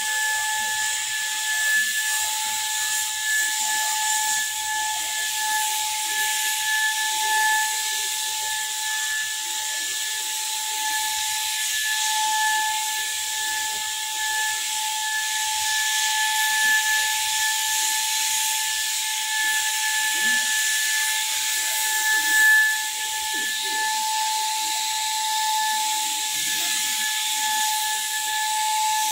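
Electric paint spray gun running steadily: a constant motor whine over the hiss of air and paint spray.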